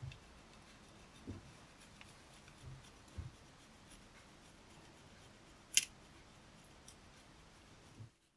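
Block of cheese grated on a small metal box grater: quiet, steady scraping, with a few dull knocks and one sharp click a little past halfway.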